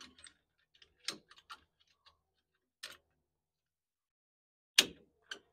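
A few sparse clicks and knocks of hands working the centre hub of a classic GM steering wheel, the loudest near the end.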